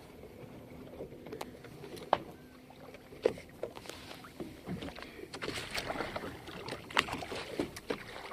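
Scattered knocks and clicks aboard a fishing boat, with sharper knocks about two, three and seven seconds in, growing busier over the last few seconds.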